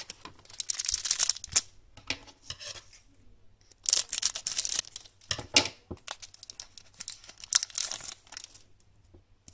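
Hockey card pack wrapper crinkling as it is handled and torn open, in several separate bursts of rustle.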